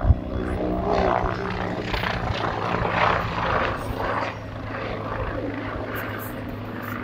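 Agusta A129 Mangusta attack helicopter flying a display manoeuvre: rotor and turbine noise over a steady low hum, louder for the first four seconds and then easing off as it moves away.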